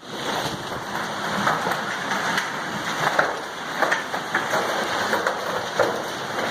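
Hail and heavy rain pelting down: a steady hiss of rain with many sharp ticks of hailstones striking scattered irregularly through it.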